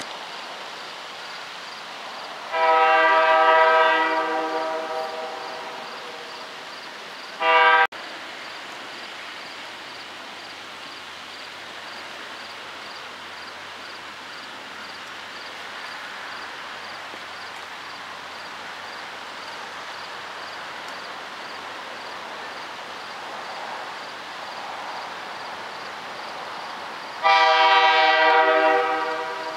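Air horn of LMCX 1821, an MLW RS18 diesel locomotive, on an approaching train: a long blast about two and a half seconds in, a short blast about five seconds later, then another long blast near the end. A quieter steady background noise fills the gaps between blasts.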